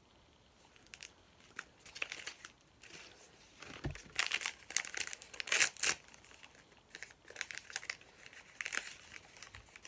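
Thin plastic wrapping crinkling and tearing as it is pulled off a small item by hand, in irregular bursts starting about a second in and loudest around the middle, with one soft knock just before the loudest part.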